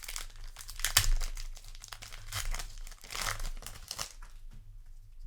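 Foil trading-card booster pack being torn open and crinkled by hand, with a sharp rip about a second in and another burst of crinkling about three seconds in.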